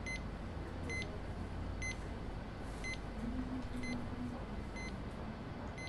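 Heart monitor beeping steadily, a short high beep about once a second, one beep per heartbeat from the ECG leads, over quiet room hum.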